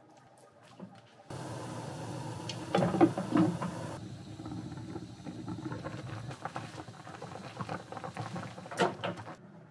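Cod heads simmering in liquid in a frying pan: a steady bubbling hiss that starts suddenly about a second in. There are a few sharp knocks and clatters around three seconds in and again near the end.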